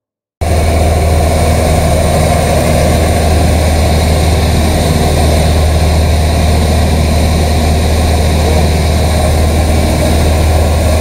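Cessna 150's four-cylinder Continental O-200 engine and propeller droning steadily in flight, heard from inside the cabin. It starts abruptly about half a second in and holds a loud, even drone.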